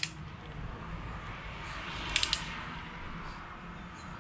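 A torque wrench's ratchet clicking four or five times in quick succession about two seconds in, over a low steady hum, while tightening a connecting-rod cap's ARP bolt at the first, 25 torque step.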